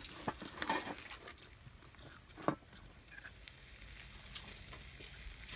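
Wood cooking fire crackling, with scattered sharp clicks and pops bunched near the start and one louder knock about two and a half seconds in.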